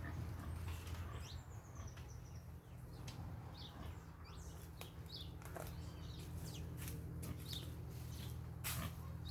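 Parakeets chirping: scattered short, squeaky calls over a steady low rumble.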